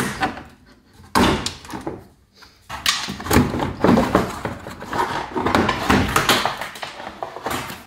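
Chevrolet Impala's plastic front splash pan being pulled loose and worked down by hand: one knock about a second in, then a long run of plastic scraping and clattering.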